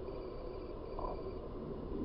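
Low, steady traffic rumble at a city intersection, from idling engines and a box truck turning across, with a short high beep about a second in.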